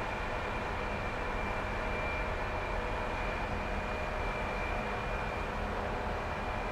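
Scandlines hybrid ferry passing close by: a steady low rumble of its engines and shipboard machinery, with a thin high whine held throughout.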